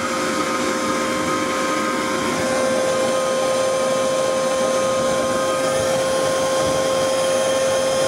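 Electric air pump running steadily, blowing air through a diesel heater's exhaust heat exchanger: a loud, steady whine over the rush of air.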